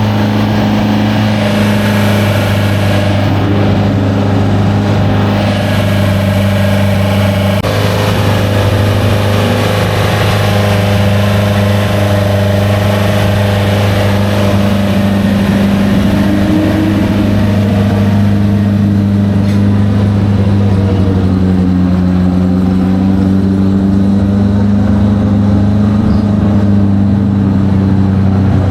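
Classic racing car engine running steadily at an almost constant speed, with only slight wavers in pitch.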